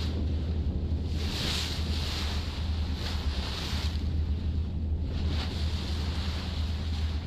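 Steady low engine drone of a ship at sea under the hiss of waves washing past, which swells and fades every second or two. Wind buffets the microphone.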